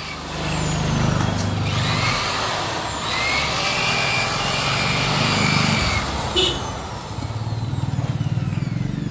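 Motor vehicle engines running close by, swelling and fading several times as traffic passes.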